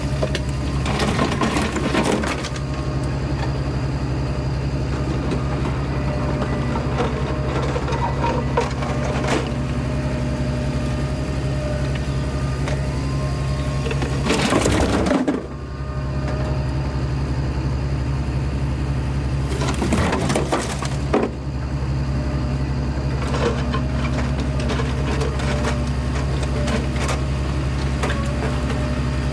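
Kubota KX080 excavator's diesel engine running steadily under load, with irregular crunching and clattering as the bucket digs and dumps dirt mixed with concrete rubble. The engine sound briefly breaks off twice, about halfway and two-thirds through.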